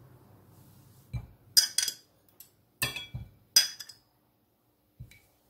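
Metal spoon clinking against a glass jar and ceramic plate as canned cherries are spooned out: a soft knock about a second in, then three sharp ringing clinks about a second apart.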